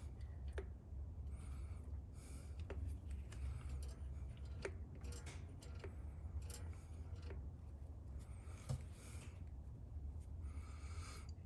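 Faint scattered clicks and rubbing of a metal throttle linkage and air actuator being moved by hand on a diesel engine's governor, over a steady low hum.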